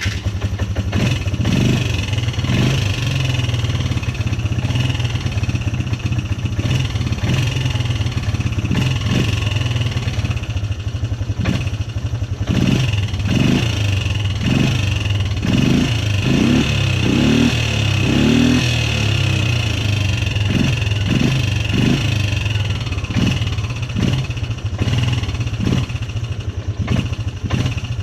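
Polaris Sportsman 300's single-cylinder four-stroke engine running at idle and being blipped over and over with the throttle, the revs rising and dropping back with each blip, most often about halfway through. It is a test run after a new air filter, listening for vibration noise.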